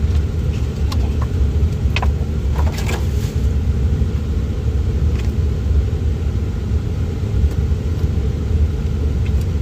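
Steady low rumble, with a few faint clicks about two and three seconds in.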